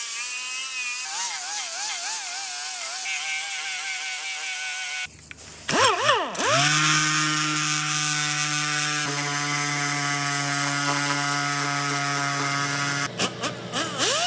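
Handheld electric power tool running, its pitch wavering as it works the metal. It stops about five seconds in, spins back up to a steady whine, then stops and restarts near the end.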